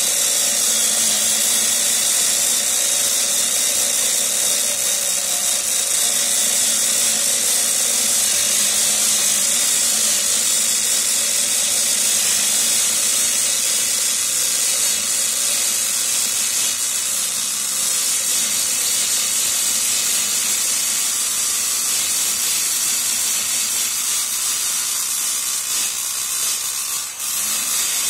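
Angle grinder with a cut-off disc grinding a spiral groove into a metal shaft that turns slowly in a lathe chuck, cutting a screw for a plastic extruder: a steady, high-pitched grinding hiss. The sound dips briefly near the end.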